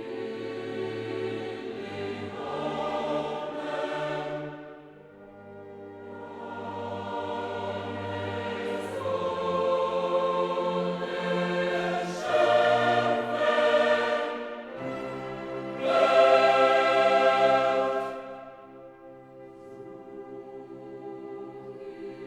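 Background music of choral voices singing long held chords over sustained low notes, swelling louder about halfway through and again near the end, then softening.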